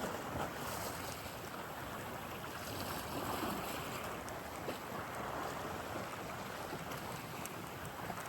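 Steady rushing noise of wind and sea water, with no clear rhythm or tone.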